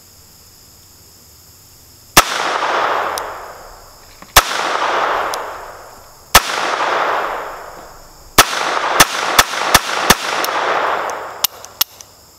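Iver Johnson .22 LR automatic pocket pistol firing: four shots about two seconds apart, then a quicker string of four, each followed by a long echo. The pistol is cycling without a hitch, 'running like a champ'.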